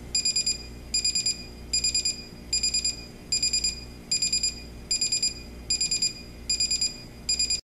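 Sony ICF-C1PJ clock radio's buzzer alarm going off: high-pitched electronic beeping in short bursts of four or five rapid beeps, about one burst every 0.8 seconds. It cuts off suddenly near the end.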